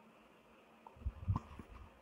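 Quiet pause of faint room tone, broken about a second in by a few short, low sounds.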